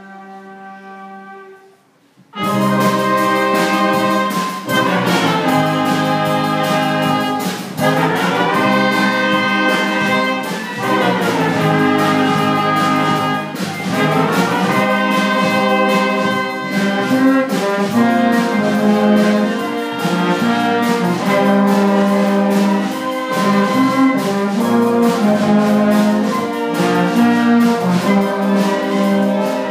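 School concert band of saxophones, flutes, brass and guitar playing. A quiet held note gives way about two seconds in to the full band coming in loudly, with sustained chords and several falling runs.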